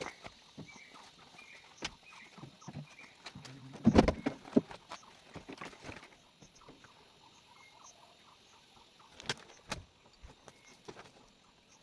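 Scattered small knocks and rustles, with a louder cluster of thumps about four seconds in and two sharp knocks later.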